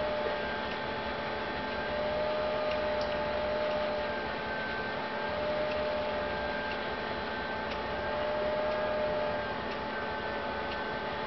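A steady electrical hum with hiss, and a faint whine that wavers in pitch about every two seconds, with a few faint ticks.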